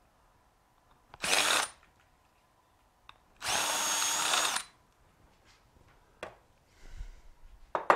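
Cordless drill spinning a bit in a freshly drilled hole in a steel handle to clean up the burrs: two short runs, the first about half a second and the second about a second long, with a steady motor whine. A knock near the end.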